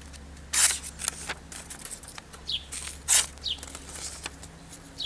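A tanto knife blade slicing through a sheet of paper: a few short rasping cuts with paper rustling between them, showing a blade that cuts but is not razor sharp. A bird chirps faintly now and then.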